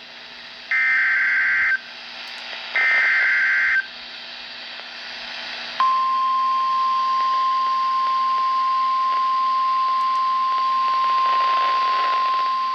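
NOAA Weather Radio emergency alert: the last two of three SAME header data bursts, harsh buzzy screeches about a second long each, then after a short gap the steady 1050 Hz warning alarm tone starts and holds. This is the start of a severe thunderstorm warning, under faint radio hiss.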